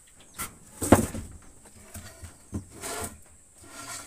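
A few sharp wooden knocks and thumps from building work on a timber hut, the loudest about a second in, with a short scraping rustle around three seconds in.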